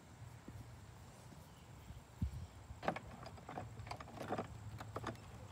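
Irregular light clicks and knocks from a strap and hook being handled against a plastic ride-on toy dump truck as it is tied down onto a trailer, over a low steady rumble.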